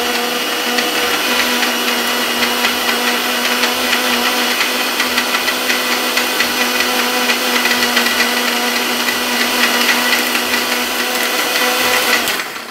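Electric mixer grinder with a stainless steel jar running steadily at speed, grinding curry spices, with a steady whine over the motor noise. It is switched off near the end and stops quickly.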